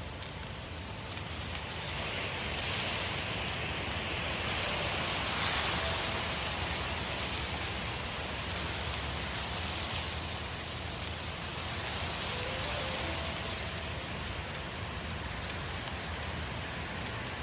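Crackling hiss of a large forest fire burning, steady and dense, swelling louder a few times. A few faint held notes sit underneath.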